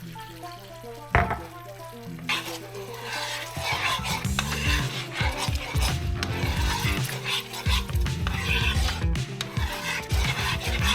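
Food sizzling in a frying pan while it is stirred, with the utensil scraping and knocking against the pan. There is a sharp knock about a second in, and soft background music.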